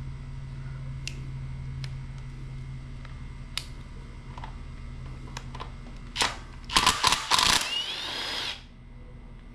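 Cordless drill/driver with a 10mm socket spinning out the carburetor bolts on a small pressure-washer engine: a short burst about six seconds in, then a longer run whose motor pitch sags and comes back up. Light clicks of tools being handled come before it, over a steady low hum.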